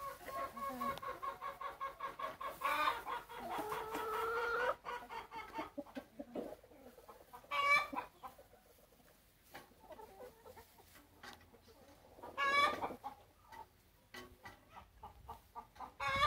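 Domestic hens clucking: a quick run of short clucks, then one drawn-out call lasting about two seconds. Single louder squawks come about eight and twelve and a half seconds in, with quieter scattered clucks between them.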